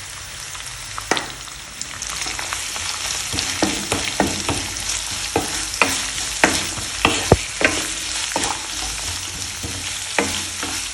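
Sliced onions, garlic, ginger and curry leaves sautéing in oil: a steady sizzle, with a spatula knocking and scraping against the pan as they are stirred, several times a second from about a second in.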